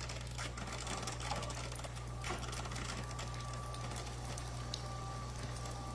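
Cuisinart SS-10P1 Premium single-serve coffee maker brewing: its water pump buzzes steadily with fast, fine clicking, and a faint steady whine joins about two seconds in.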